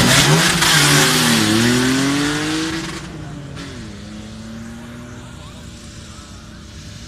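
Rally-prepared off-road 4x4 accelerating hard away from a standing start, its engine revving up, dipping about a second and a half in, then climbing again over a loud rush of tyre noise. The sound fades after about three seconds, leaving a quieter engine running steadily.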